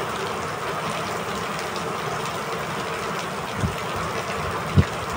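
Steady rain rushing, with two short low bumps near the end, the second the louder.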